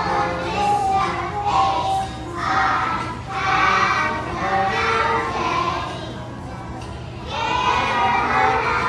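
A class of preschool children singing together in unison, softening briefly about six seconds in before picking up again.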